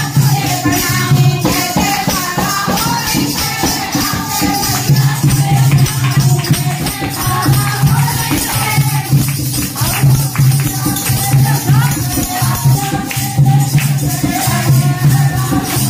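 Live devotional kirtan music: a dholak drum beating a steady repeating rhythm under women's group singing, with hand-clapping and jingling percussion.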